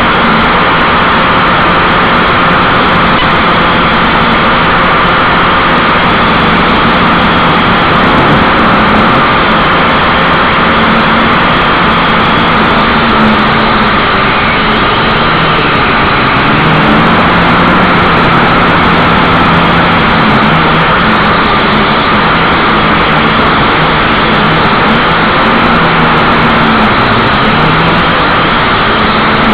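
Small toy quadcopter's motors and propellers heard from its own onboard camera: a loud, steady buzzing whir over a dense hiss. The pitch wavers up and down as the motors speed up and slow down in flight.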